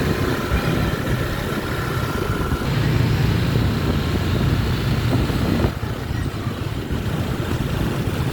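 Road vehicle engines running in traffic, a steady low rumble that grows louder from about three seconds in and drops back suddenly near six seconds.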